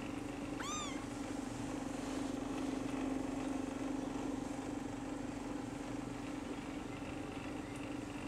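A Maine Coon kitten gives one short, high mew that rises and falls in pitch, about half a second in, while the kittens crowd a lap begging to nurse. A steady low hum runs underneath.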